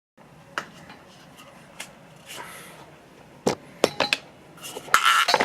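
A few sharp light clicks and clinks, sparse at first and coming closer together about three and a half seconds in, then a louder hissing, rustling sound near the end.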